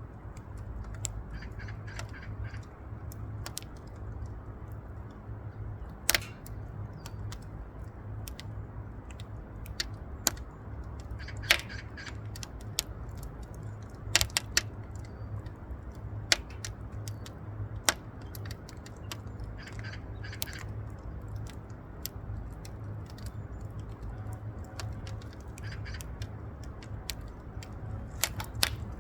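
Firewood burning and crackling, with irregular sharp pops and snaps over a steady low rumble.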